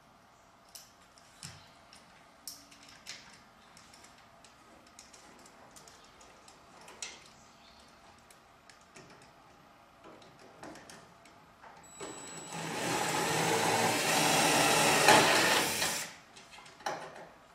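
Drill with a right-angle attachment running steadily for about four seconds, starting about twelve seconds in, drilling a hole. Before it, light clicks and taps of tool handling.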